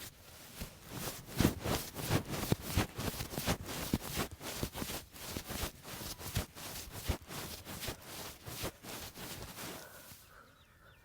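A masseur's hands striking the client's body in a fast run of sharp slaps and taps, several a second, as percussive strokes of an Indian head and back massage. They begin shortly after the start and die away near the end.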